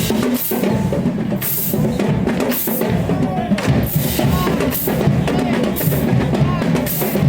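Marching band percussion playing a marching-in cadence: drums in a steady beat with regular cymbal crashes.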